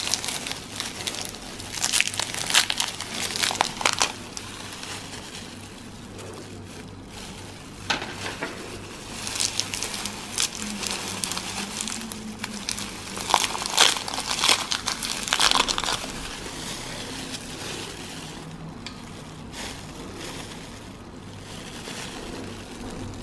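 Crinkling and rustling of disposable plastic gloves and twist-wrapped foil chocolate wrappers as individually wrapped chocolates are unwrapped by hand. The crinkling comes in irregular bursts and grows quieter and sparser in the last third.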